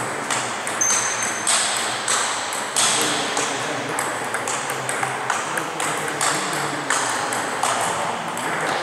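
Table tennis rally: the celluloid/plastic ball clicking sharply off the rackets and the table in quick, irregular succession.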